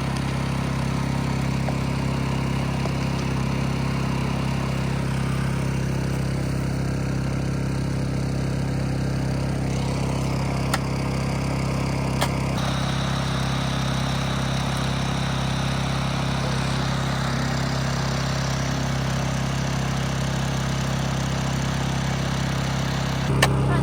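An engine running steadily at idle, giving a low, even hum, with a couple of faint ticks about halfway through.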